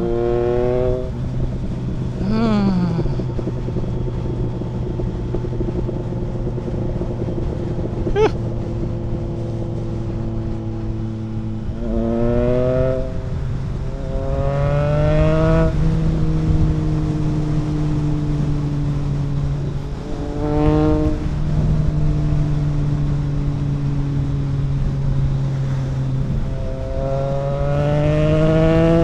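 Triumph Trident 660's inline three-cylinder engine through a homemade custom exhaust with no dB killer, riding along at a steady pitch and pulling up in pitch several times, each pull ending in a drop to a steady pitch as a gear is changed. A sharp click sounds about eight seconds in.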